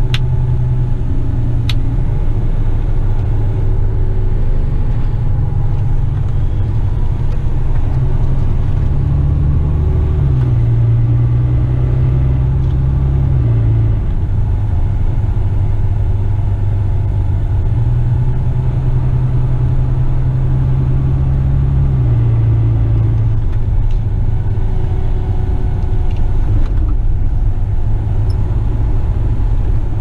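Western Star dump truck's diesel engine droning inside the cab while driving. Its pitch steps down about ten seconds in, rises again a little before twenty seconds, and drops once more about twenty-two seconds in.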